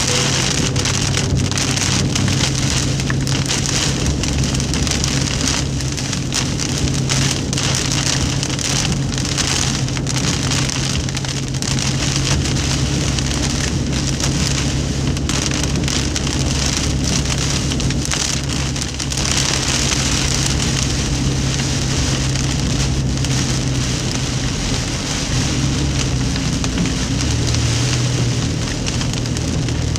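Heavy rain drumming on a car's roof and windshield, heard from inside the cabin while driving. A steady low hum from the moving car runs underneath, and its pitch shifts slightly near the end.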